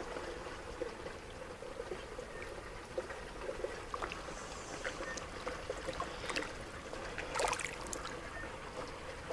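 Water trickling and lapping in an outdoor hot-spring pool, faint and steady, with small splashes and one louder one about seven seconds in.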